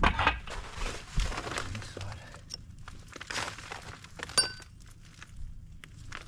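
Footsteps on gravel, then light clicks and knocks as a bricklayer handles a building line and corner blocks on a brick pier, with one short ringing metallic clink about four seconds in.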